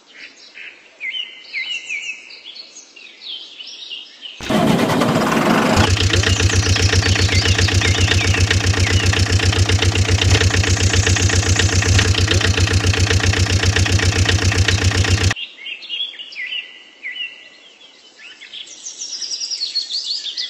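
Birds singing, then about four seconds in an engine cranks and starts, runs with a fast, even chug for about ten seconds, and cuts off suddenly, after which the birdsong returns.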